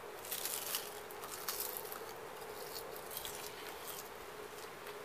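Crisp crackling and crunching of a thin roasted seaweed snack being bitten and chewed, thickest in the first two seconds and then thinning to scattered crackles. A faint steady hum sits underneath.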